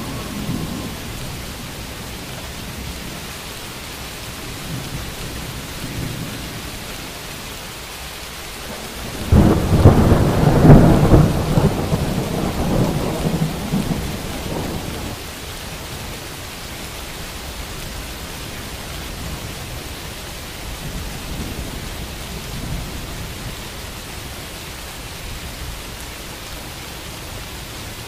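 Steady rain with a thunderclap about nine seconds in, rumbling loudly for several seconds before dying back into the rain.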